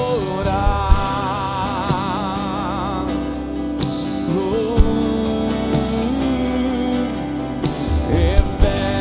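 Live worship song in Portuguese: a man sings long, wavering held notes over a strummed acoustic guitar, with a sustained chord underneath and a few sharp percussive hits.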